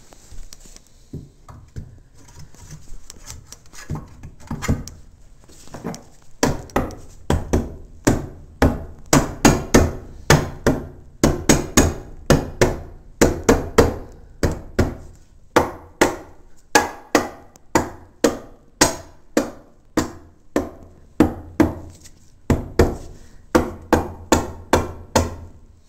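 Hammer blows on wood: a few light, irregular knocks at first, then a long steady run of sharp strikes about two a second, driving in a new wooden floor support.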